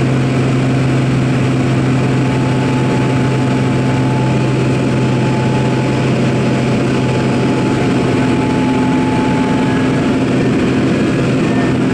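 Light aircraft's engine and propeller running steadily, heard from inside the cabin in flight: a constant drone with a low hum under a heavy rush of wind noise.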